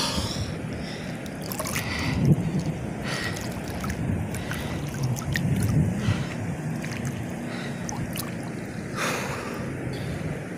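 Water sloshing and lapping against a camera held at the surface by a swimmer, with a few brief splashes.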